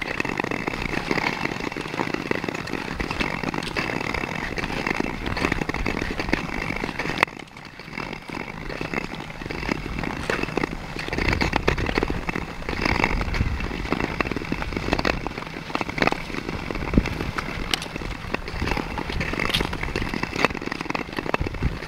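Ice skates scraping and gliding over clear natural lake ice: a continuous gritty hiss broken by many sharp clicks and scrapes as the skaters stride, dipping briefly about seven seconds in.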